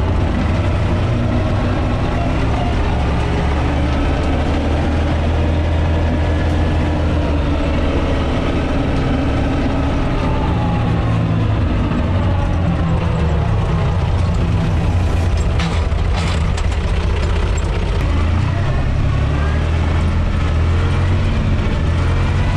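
UTB 445 DT tractor's four-cylinder diesel engine running as the tractor drives along, heard from inside the cab. The engine note drifts slowly up and down, with a few sharp clicks about two-thirds of the way through.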